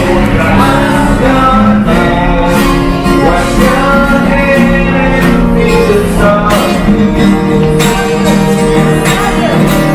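A song with acoustic guitar and singing.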